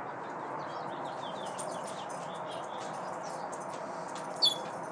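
African grey parrot giving one short, loud falling whistle about four and a half seconds in, after a few faint high chirps and clicks, over a steady background hiss.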